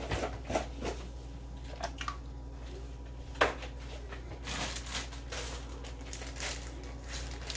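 Chopped onions being tipped and scraped into a pot, with scattered light knocks, scrapes and rustles of kitchenware against it and one sharper knock about three and a half seconds in. A steady low hum runs underneath.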